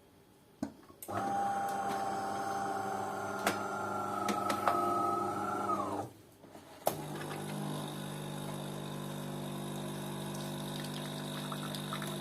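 DeLonghi coffee machine running: a whining motor for about five seconds that drops in pitch and stops, then after a click a lower steady hum.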